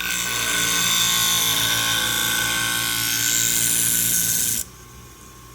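Fiskars sewing scissor blade ground on the spinning 240-grit diamond wheel of a Wolff Twice As Sharp sharpener, a steady loud grinding over the machine's motor, taking the edge bevel down until a burr forms. The grinding stops suddenly near the end, leaving a low hum.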